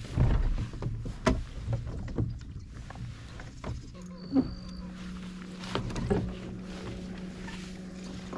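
Knocks and bumps of fishing gear against a plastic fishing kayak while a jerkbait is worked back after a cast, over water noise. A steady low hum starts about four seconds in, with a brief high whistle just as it begins.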